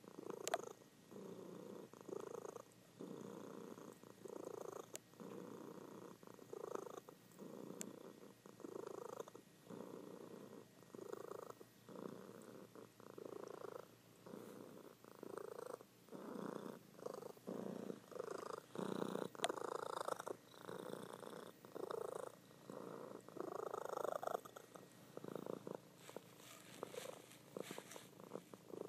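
Calico cat purring in her sleep, a steady, rhythmic purr that pulses with each breath in and out.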